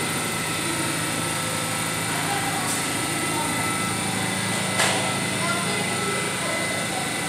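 Steady hum and whine of a stationary R68 subway train's onboard equipment running at the platform. A single sharp knock comes about five seconds in.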